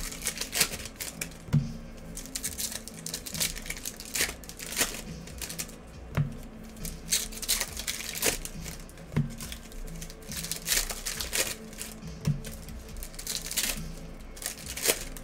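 Crinkling and tearing of plastic wrapping, with irregular sharp clicks and taps, as a hobby box of trading cards is opened and its packs handled.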